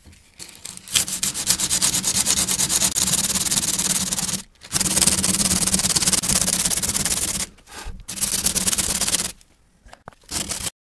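Coarse 50-grit sandpaper on a flexible sanding block scrubbed rapidly back and forth by hand over the red gelcoat of a fiberglass canoe deck, in three long runs with short pauses between, cutting down through the gelcoat to the fiberglass beneath.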